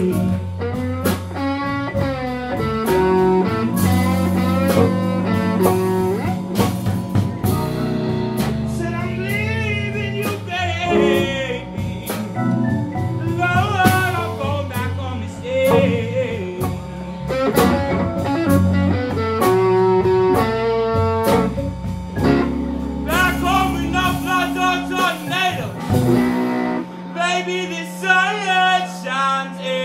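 Live slow blues from a small band: a male singer belting the vocal over electric guitar, electric bass and drum kit.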